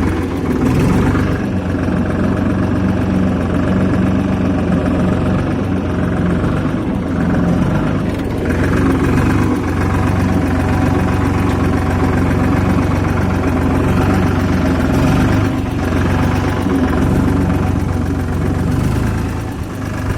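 Ford tractor's diesel engine running steadily at a low, even speed.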